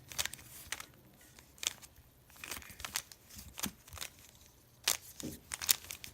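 Plastic layers of a 3x3 speed cube being turned by hand: irregular sharp clicks and short scrapes, with a quick run of turns near the end.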